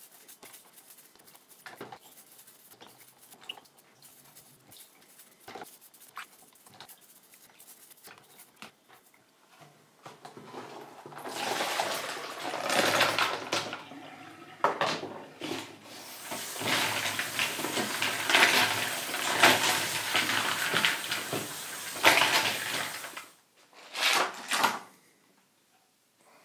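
Faint scrubbing and light clicks of small plastic knobs in a tub of soapy water, then water poured out into a stainless steel kitchen sink about eleven seconds in, and the tap running onto the knobs in a plastic sieve as they are rinsed. The water stops abruptly a few seconds before the end, followed by two short bursts of noise.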